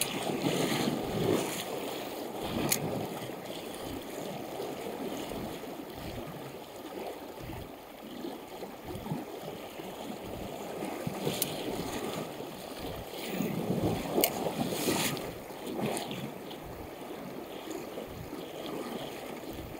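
Fast-flowing river water rushing over its stony bed, a steady noisy wash. A few sharp clicks break in, twice close together about three-quarters of the way through.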